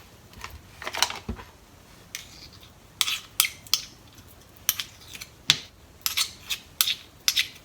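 A utensil clinking and scraping against a cup in a run of irregular light taps, thickest in the second half, as miso is worked into a cup of dashi stock.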